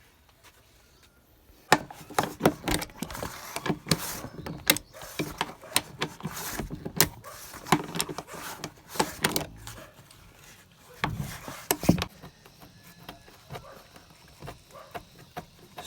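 Toyota Revo rear seat section being worked loose by hand: irregular knocks, clicks and rattles of its frame and fittings, starting a couple of seconds in and thinning to faint ticks near the end.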